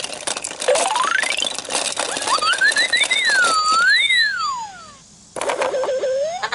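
VTech Learn & Dance Interactive Zoo toy playing electronic sound effects. A quick whistle-like tone rises about a second in, then a longer tone climbs in steps and swoops down and up, and another rising glide comes near the end, with clicking and clatter mixed in.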